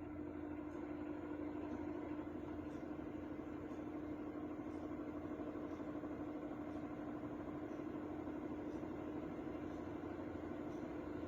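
Tower fan running: a steady rush of air with a constant low motor hum.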